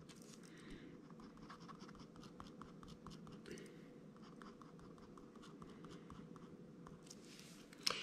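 Pen scratching on a paper pad in quick short strokes, shading in sections of a drawing; faint. A sharper click near the end.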